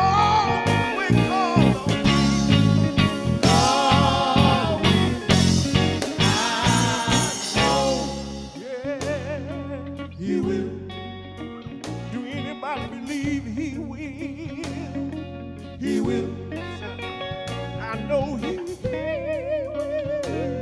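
Gospel vocal quartet singing with a live band of electric guitars, bass guitar and drums. The music is loud at first and grows quieter about eight seconds in.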